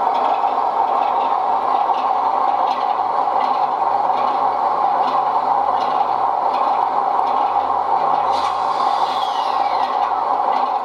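00 gauge model train running past close by: a steady running hum with wheels clicking over rail joints, and a falling whine about eight seconds in.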